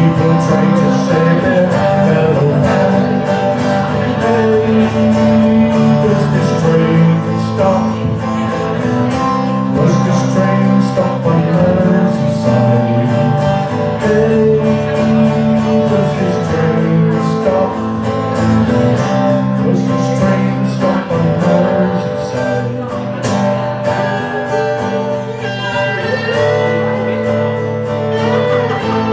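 Live folk song performance: strummed acoustic guitar with singing, playing steadily with no break.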